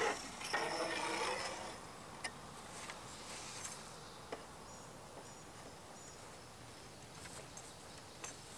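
Quiet outdoor background of insects with faint high chirps. A brief scraping rustle comes in the first second or so, and a few faint knocks follow as the metal canopy-pole mast is handled.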